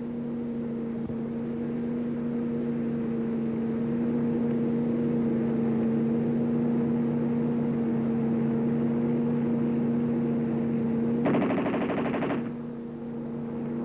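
An Owen 9 mm submachine gun fires one rapid burst of about a second, near the end, over a steady droning hum that runs underneath throughout.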